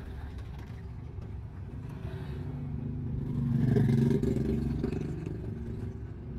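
Engine and road noise of a manual Daihatsu car rolling slowly in second gear, heard inside the cabin; the engine note swells louder for about a second near the middle, then settles back.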